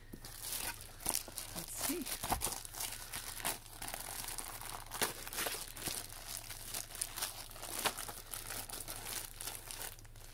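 Thin clear plastic bag crinkling and rustling in a dense, irregular crackle as it is handled and pulled open.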